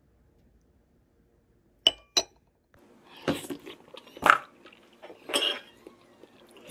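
A metal spoon clinks twice against a custard pudding cup, then scrapes and scoops through it three times, with a last clink near the end.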